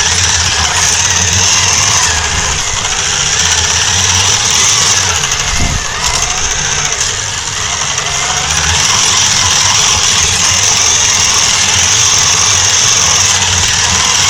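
Radio-controlled truck driving with the recording phone taped to it: a steady high motor-and-gear whine over a rumble from the wheels and chassis, easing briefly about six seconds in with a single knock.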